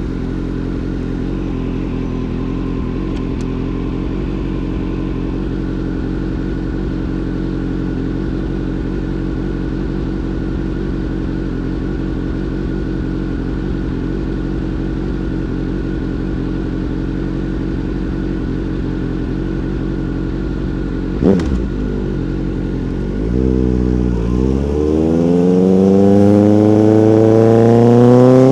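Motorcycle engine holding a steady note for most of the time, with one sharp click about 21 seconds in. Near the end it revs up and accelerates, its pitch rising.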